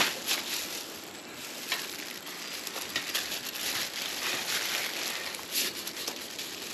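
Hands rubbing salt into a raw Petrale sole, an irregular crinkly, crackling rustle with small clicks.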